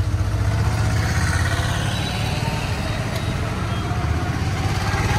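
A motor vehicle's engine running close by with a fast, steady low chug.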